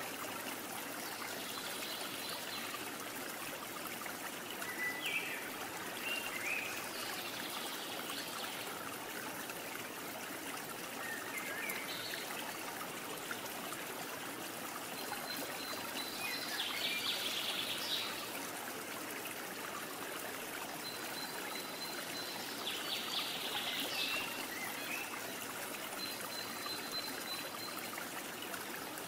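Running water from a stream, trickling steadily, with birds chirping now and then over it.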